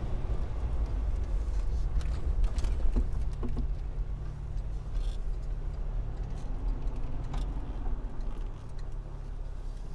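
Car driving along at steady speed: a continuous low road and engine rumble, with a few faint clicks.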